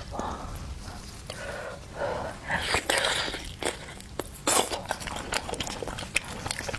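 Close-up eating sounds of someone biting and chewing spicy softshell turtle meat: many sharp, wet mouth clicks and short crunchy bursts, busiest from about two seconds in.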